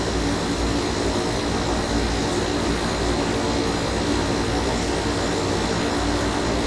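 Steady machine-like drone with a low hum and an even hiss, unchanging throughout.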